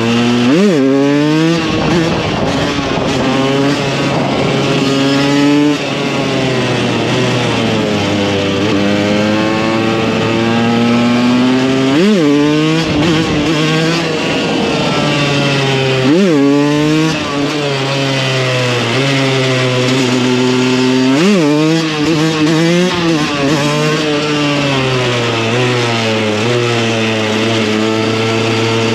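2015 KTM 125 EXC supermoto's two-stroke single-cylinder engine on the move, revving up and down through the gears. Several quick, sharp rev spikes stand out, the pitch jumping up and dropping straight back.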